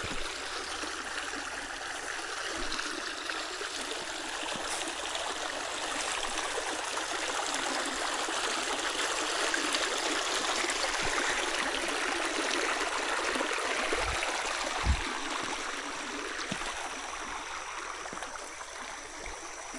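Shallow stream running over stones, a steady rushing burble that swells a little around the middle. Two dull low thumps come about three quarters of the way through.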